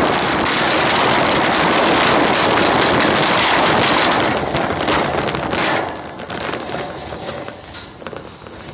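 Wire shopping cart rolling over parking-lot asphalt, its wheels and metal basket rattling continuously. The rattle drops off sharply about six seconds in and stays quieter near the end.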